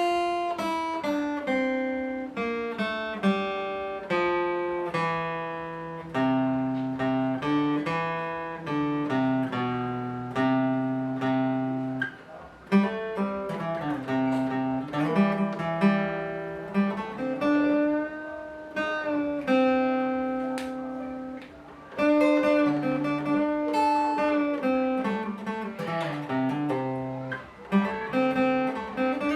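Steel-string acoustic guitar, strung with light 12-gauge strings, played fingerstyle: a picked melody over bass notes, with two short pauses along the way.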